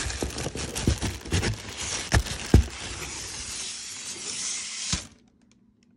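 Plastic wrapping rustling and crinkling as a speaker is handled in its cardboard box, with several sharp knocks from the handling. The sound cuts off about five seconds in.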